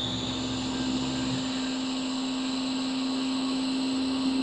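Hot air rework station blowing onto a phone logic board to reflow a replacement touch IC: a steady fan hum with a high whine over a hiss.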